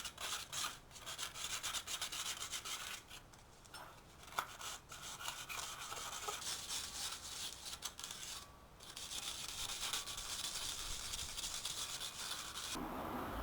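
Sandpaper rubbed by hand over a brake disc rotor, scuffing the glaze off its surface: quick back-and-forth rasping strokes at first, then longer steady scrubbing with two short pauses.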